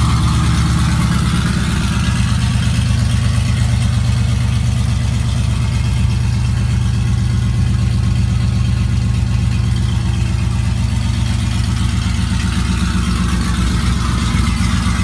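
Cammed Chevy Silverado engine idling loud and steady after a remote start.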